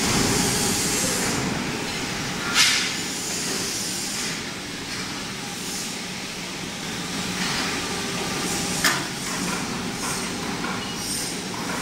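Steady industrial machinery noise with a low hum, broken twice by a sharp knock about six seconds apart.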